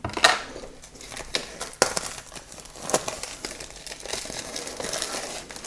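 Packaging crinkling and rustling as a Blu-ray SteelBook is unpacked by hand, with a few sharp clicks and taps and a longer stretch of crinkling near the end.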